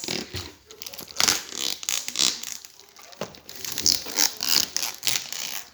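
A parcel's packaging being torn open and crinkled by hand: irregular bursts of rustling, crinkling and tearing.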